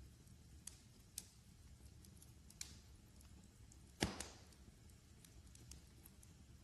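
Wood fire crackling in a fireplace: a soft low rumble with scattered small pops, and one sharper, louder pop about four seconds in.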